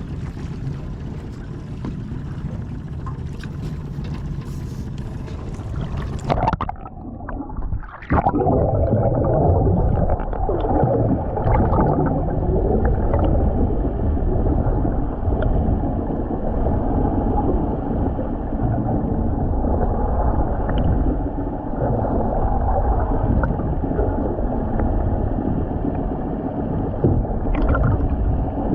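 Steady low rumble of a fishing boat under way with water noise against the hull. About seven seconds in the sound breaks off briefly and comes back louder and more muffled.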